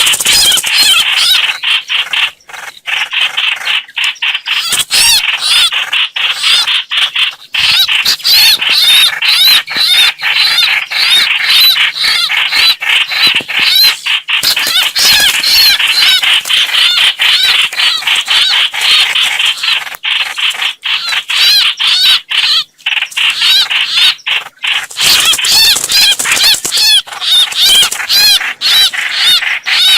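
Hoạch hoạch bird lure call: rapid, dense chattering chirps repeating almost without pause, high-pitched and loud. This is a recording played to call birds in for trapping.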